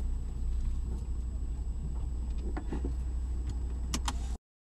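Car interior noise picked up by a dashcam: a steady low engine and road rumble with a few faint clicks, cutting off abruptly near the end.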